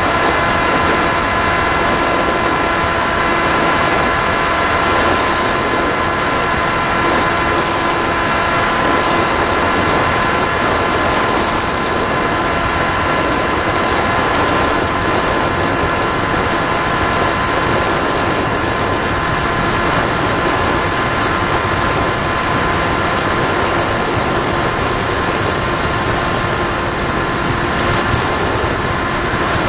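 Rush of airflow and a high motor whine recorded on board an RC model plane in flight. The whine wavers in pitch for the first several seconds, then climbs slowly and steadily.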